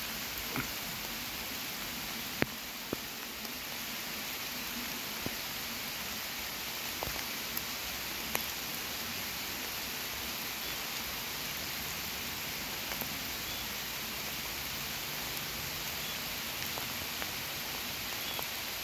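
Downpour falling steadily: an even hiss of rain with scattered sharp ticks of drops striking close by.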